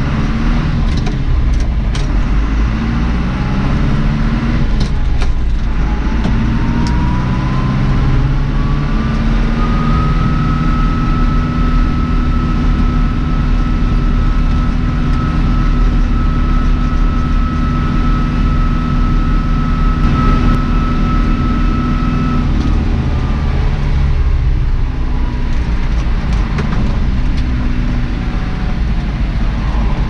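John Deere 2650 tractor's diesel engine pulling on the road, heard from the cab. About six seconds in, the engine note and a high whine climb together as it speeds up, then hold steady until they ease off late in the stretch, with occasional short knocks.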